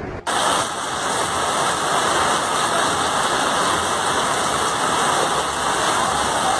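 Heavy rain pouring onto a flooded street with fast floodwater rushing, a loud, steady hiss that starts abruptly a moment in.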